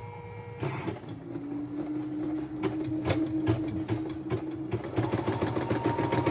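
YOKO portable computerised embroidery machine on a test run after servicing. Its motor runs with a steady whine and a few clicks, then rapid, even needle stitching starts about five seconds in.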